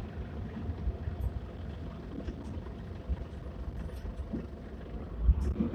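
Mitsubishi PJ-MP37JK city bus idling at a stop, a steady low diesel rumble with a few faint ticks.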